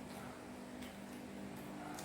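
Soft eating sounds: a few faint, short mouth clicks from chewing over a steady low hum.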